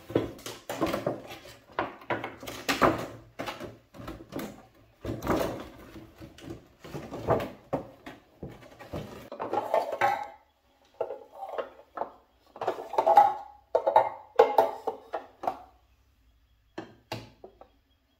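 Clear hard-plastic (acrylic) drawers and panels of a jewelry organizer being handled and fitted together: irregular clacks, knocks and scraping rubs, dying out about two seconds before the end.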